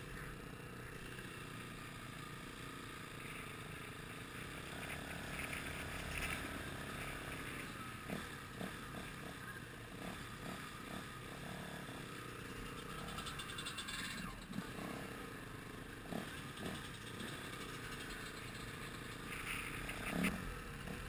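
Faint off-road motorcycle engine running steadily, with a few short clicks and knocks.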